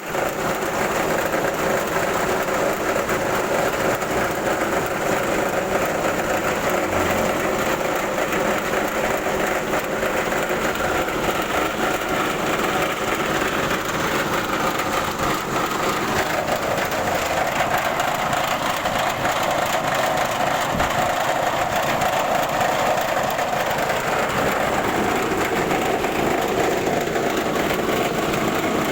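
Rice milling machine (huller with bran separator) running steadily on a test run, a continuous loud mechanical whirr and rattle; its tone drifts and shifts partway through.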